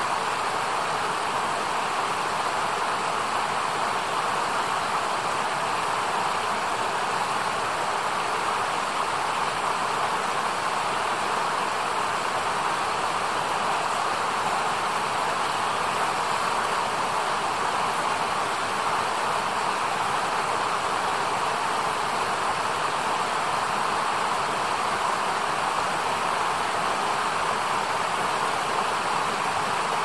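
A shallow mountain stream rushing steadily over rocks.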